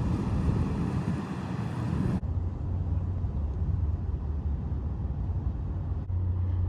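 Wind buffeting the microphone over a steady low boat-engine rumble, with a low hum. The sound changes abruptly twice, about two seconds in and near the end.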